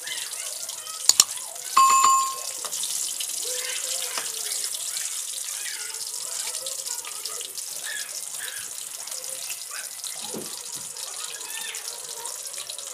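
Tilapia fillets deep-frying in hot oil in a wok, a steady sizzling hiss, the fish already browned and close to done. A pair of sharp clicks about a second in and a short ringing tone just after are the loudest sounds.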